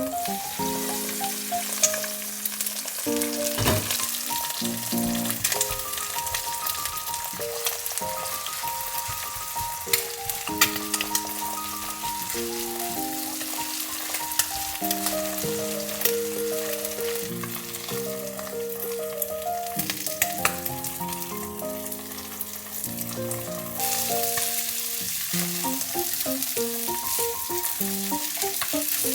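Food frying and sizzling in a pan, with scattered sharp clicks of stirring, over background music with a plain melody. The sizzle gets louder near the end.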